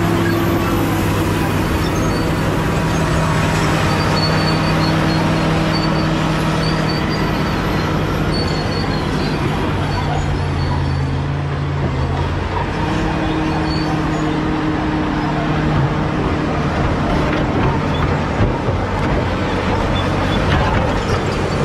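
Caterpillar D7G bulldozer's six-cylinder diesel engine running steadily under load. The engine note drops for a couple of seconds about halfway through, then comes back up, with a few knocks near the end.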